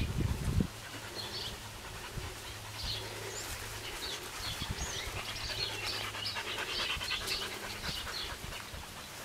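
Adult Australian Shepherd panting in the heat, in short repeated breaths, with birds chirping.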